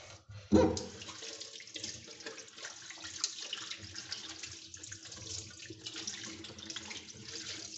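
Tap water running and splashing over a red plastic canister-filter media tray as it is rinsed in a sink, with a single loud bump about half a second in.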